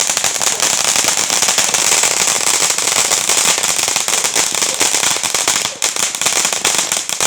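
A consumer firework going off in a fast, dense crackle of tiny pops that starts suddenly and runs on without a break, briefly thinning about six seconds in.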